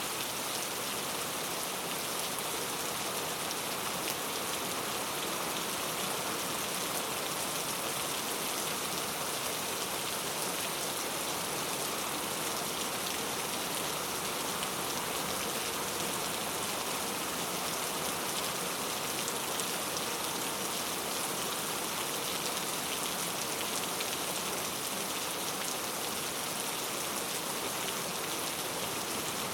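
Steady heavy rain falling, an even, unbroken hiss of drops on surfaces.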